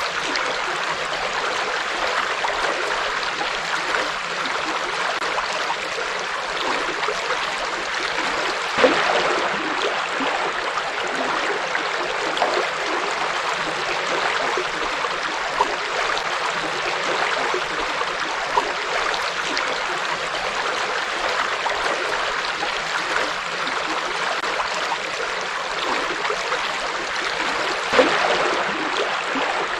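A shallow river or stream flowing steadily over rocks, with even rushing water and a few brief louder splashes and gurgles about nine seconds in and near the end.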